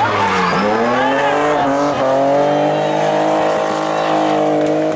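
BMW E36 rally car's engine dipping in pitch about half a second in, then revving up and held at high, steady revs as the car slides sideways through a hairpin with its rear tyres spinning and squealing.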